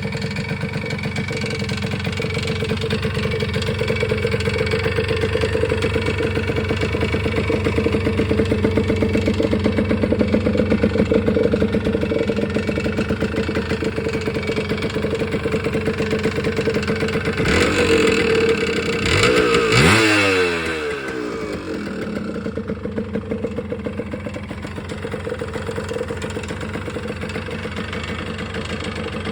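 An engine running steadily. About two-thirds of the way through it revs briefly and the pitch falls back, then it settles into a quieter, even idle.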